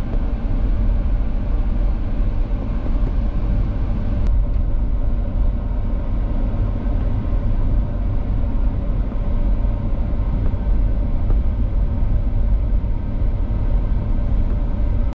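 Steady low rumble of a car driving over a rough dirt and gravel road, heard inside the cabin.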